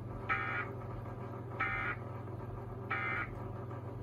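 Emergency Alert System end-of-message signal: three short bursts of digital data tones, about 1.3 seconds apart, marking the end of the alert. A steady low hum runs underneath.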